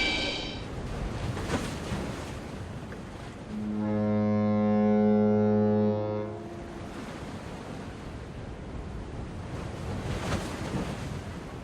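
Underwater hydrophone recording: a steady hiss of sea noise, with one low horn-like tone held for about three seconds a few seconds in.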